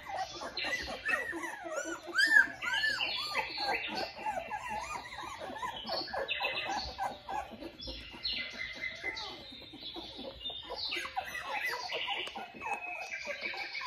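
Newborn Australian Shepherd puppies squeaking and whining, a quick run of short arching cries, loudest in the first few seconds and sparser later, with rustling and snuffling noise in between.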